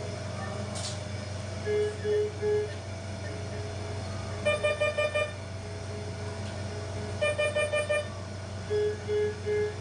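Hospital bedside equipment alarms beeping over a steady machine hum. A low three-beep alarm sounds twice, about two seconds in and near the end. Between them come two runs of five quick, higher beeps, about four and a half and seven seconds in. The three-beep group fits the standard medium-priority alarm pattern and the five quick beeps the high-priority one.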